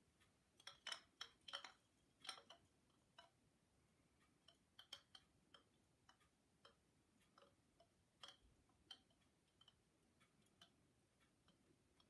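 Bamboo wind chime pieces knocking together, faint hollow clacks at irregular intervals: a quick flurry in the first couple of seconds, then scattered single knocks.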